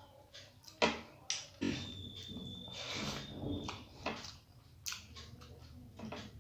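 Someone eating by hand: about half a dozen sharp mouth smacks and clicks, with a stretch of noisier chewing between about one and a half and four seconds in.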